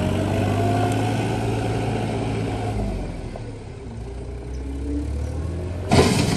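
Small wheel loader's engine running as it drives over gravel, with a whine that rises over the first second and the sound fading somewhat midway. Near the end, a sudden loud crunch and scrape as the bucket digs into the gravel pile.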